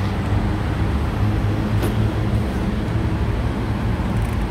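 Steady low mechanical rumble in the background, with a light click about two seconds in.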